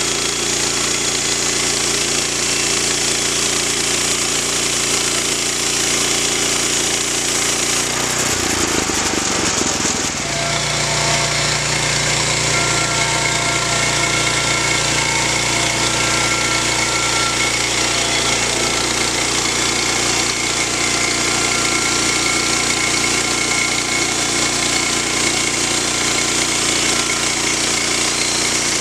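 Petrol engine of a Woodland Mills portable band sawmill running under load as its band blade saws through a pine log, steady and loud. The sound breaks briefly about nine seconds in, then goes on with a thin high whine on top.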